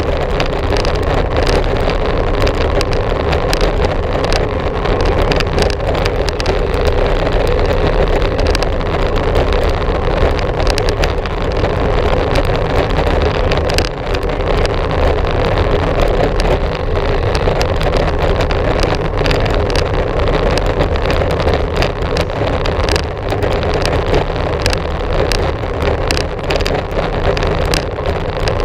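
Steady, muffled rush of wind and riding noise on a GoPro Hero 4 carried on a moving bicycle, with many small knocks throughout.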